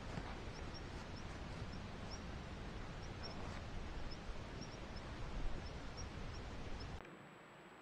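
Wind rumbling on an outdoor camera microphone, with short high chirps repeating irregularly over it; the noise drops away sharply near the end.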